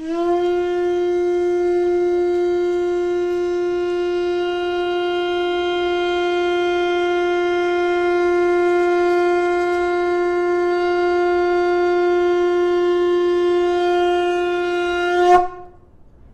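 A white conch shell trumpet (Tibetan dungkar) blown in one long, steady held note. The note swells briefly louder just before it stops, about a second before the end.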